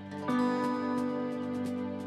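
Instrumental background music: a new chord comes in about a third of a second in and is held.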